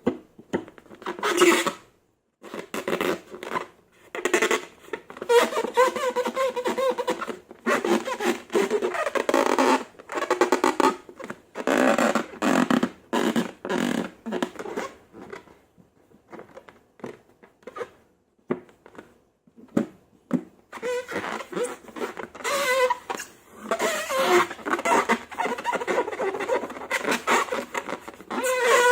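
Slime being worked by hand, in repeated irregular squelching bursts with fart-like air pops and squeaks.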